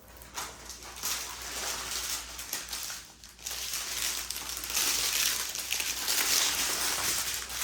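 Small plastic bags of diamond-painting drills crinkling and rustling as they are handled and sorted through by hand. The sound dips briefly about three seconds in, then gets louder.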